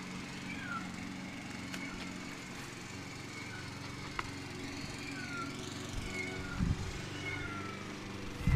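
A neighbor's lawn mower engine running steadily, with short high chirps over it.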